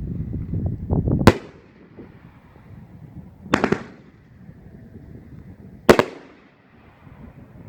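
Large-shell firework cake firing: three sharp booms a little over two seconds apart, with a low rumble before the first.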